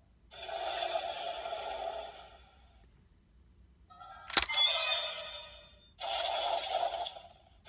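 Bandai DX Orb Ring toy playing electronic sound effects through its small speaker in three bursts, with a sharp click of the toy's mechanism a little over four seconds in.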